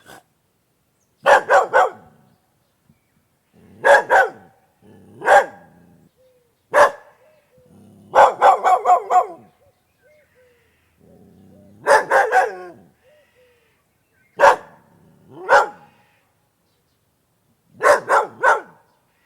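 A dog barking in short, sharp barks, some single and some in quick runs of three to six, with pauses of a second or more between.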